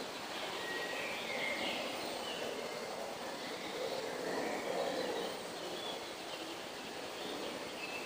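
Forest ambience: short, distant bird calls over a steady background rush that swells about halfway through.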